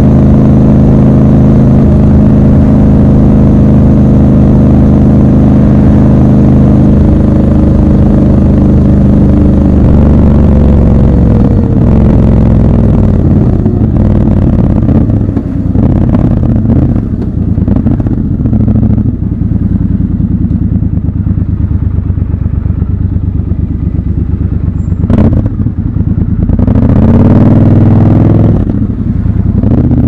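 Triumph Scrambler 1200 XC's 1200 cc parallel-twin engine running steadily at cruising speed, then dropping in pitch as the bike slows into traffic. At low speed it runs lower and rougher, with a sharp click about five seconds from the end and a short rise and fall in revs near the end.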